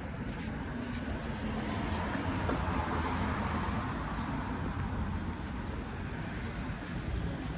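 Road traffic noise with a steady low hum. A passing vehicle swells to a peak about three seconds in, then fades.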